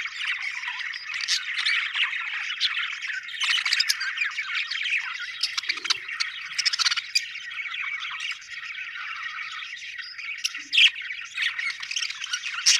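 Several budgerigars chirping and warbling at once in a continuous chatter, with sharp squawks and clicks scattered throughout.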